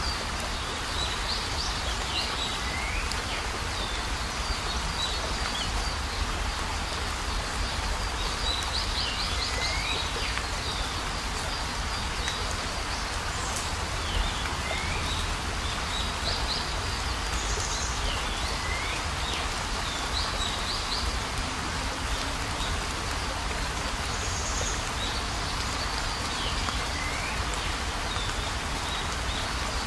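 Night outdoor ambience: a steady hiss with short, high chirping calls from small animals repeating every two to three seconds, some as quick rapid trills and some as brief pitch slides.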